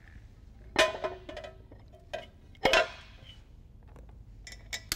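Steel flywheel clinking against metal as it is slid onto the back of the crankshaft. There are a few sharp metallic clinks with a short ring: the loudest is a little under three seconds in, and there are light ticks near the end.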